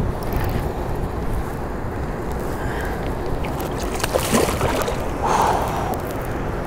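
Wind rumbling on the microphone over water sloshing against a canoe, with a couple of sharp splashes about four seconds in and a brief sloshing just after five seconds.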